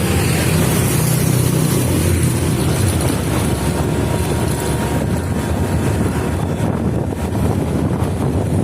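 Honda Vario 125 scooter's single-cylinder engine running while riding, with wind rushing over the microphone.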